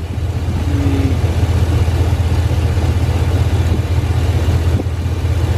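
A 2003 Chevy Silverado's engine idling steadily, heard close up in the open engine bay, with its freshly replaced alternator spinning on the belt and charging.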